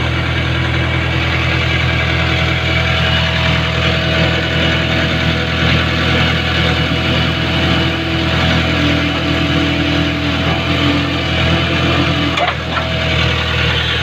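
JCB backhoe loader's diesel engine running steadily while the digging arm works, with a steady whine over its low drone. There is a brief dip and a sharp knock about twelve and a half seconds in.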